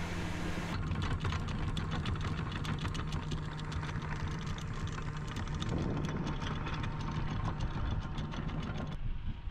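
Sailboat's auxiliary engine running steadily, with a fast run of sharp clicks or rattles over it from about a second in that stops near the end.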